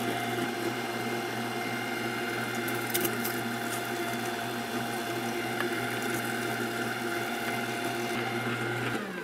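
Electric meat grinder's motor running steadily with an even hum as it grinds pork through a fine 4.5 mm plate on the second pass. It is switched off about nine seconds in and winds down with a falling pitch.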